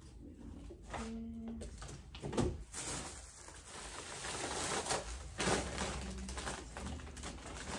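Plates, napkins and other picnic things being handled and packed into a picnic basket: a few sharp knocks and a stretch of rustling.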